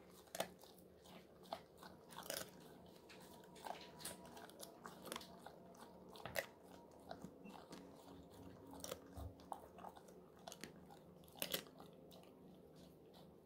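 Golden retriever crunching and chewing a pig-ear treat: irregular crisp cracks about every second, with a few louder crunches scattered among them.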